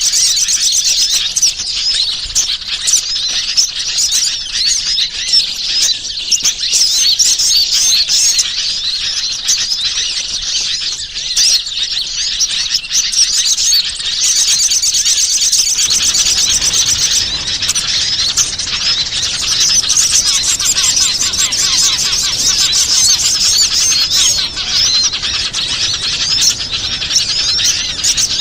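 Dense chorus of small wild songbirds chirping and twittering rapidly at high pitch, many calls overlapping without a break: a bird-lure recording played to attract small birds. About halfway through a low background hiss joins the chirping.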